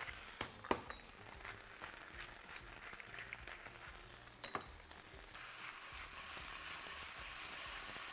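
Pea gnocchi sizzling as they fry in olive oil in a nonstick pan, with a few sharp clicks. The sizzle grows louder about five seconds in.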